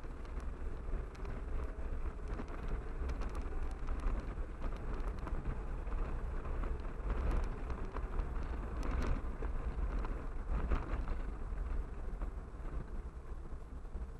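Car driving on a rough, patched road, heard from a dashcam inside the cabin: a steady low rumble of engine and tyres, with scattered knocks and rattles, most of them in the middle stretch.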